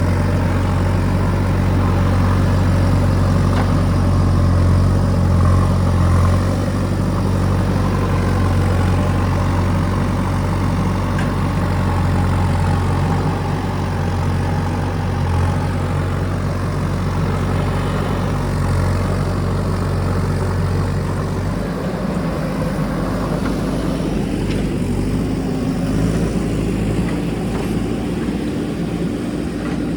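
JCB backhoe loader's diesel engine running with a steady low hum; about two-thirds of the way through its note changes and turns rougher.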